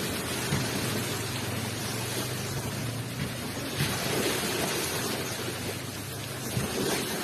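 Ocean waves washing onto the shore: a steady rushing surf noise that swells about four seconds in.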